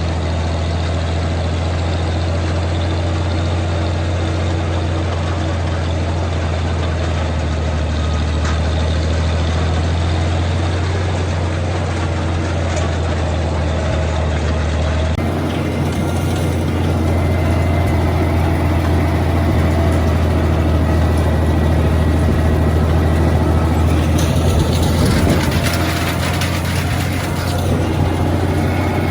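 Farm tractor engine running steadily, a deep continuous drone; the sound changes abruptly about halfway through.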